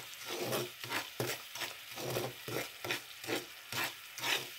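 Metal spoon stirring and scraping through bubbling melted sugar in a black frying pan, about two or three strokes a second over a steady sizzle. The sugar is being cooked down to caramel but is still pale and not browning.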